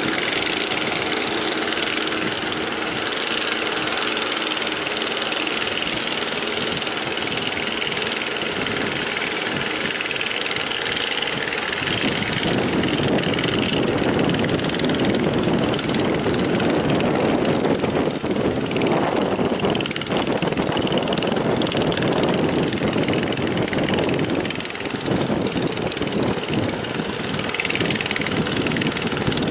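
Speedboat outboard motor running, mixed with wind and surf noise; the engine grows louder about halfway through.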